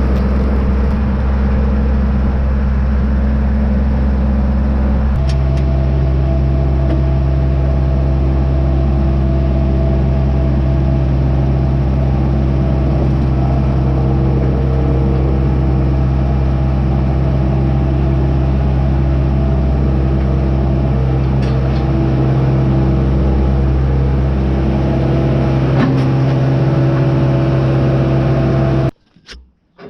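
Tractor engine running steadily, its pitch shifting once about five seconds in, then cutting off abruptly near the end.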